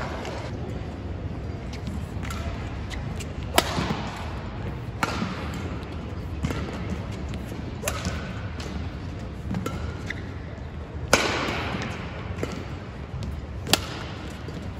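Badminton rally: sharp racket strikes on the shuttlecock about every one to one and a half seconds, each ringing on in the hall's echo, the hardest hits near the end.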